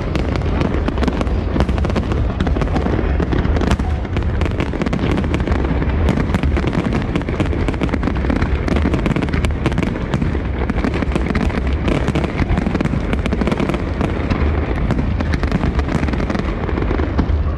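Large fireworks display firing a dense, continuous barrage: many bangs and crackles close together, overlapping with no break.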